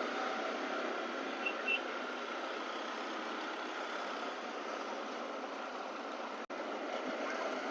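Steady riding noise of a Yamaha R15M V4 motorcycle under way: its single-cylinder engine and the rush of wind and road, picked up by a rider-worn wireless mic. Two short high beeps from traffic come about a second and a half in.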